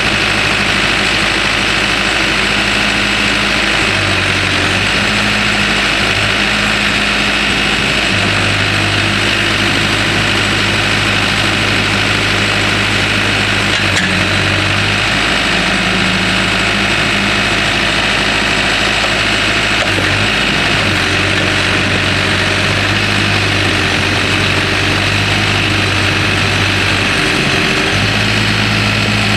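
Case four-cylinder diesel engine of a 2006 Case 580M Series II backhoe running, its low note stepping up and down between a few steady speeds several times.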